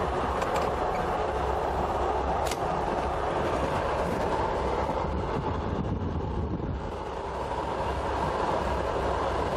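Passenger train running, heard from inside a carriage: a steady rumble and rush of wheels on rail, with one sharp click about two and a half seconds in.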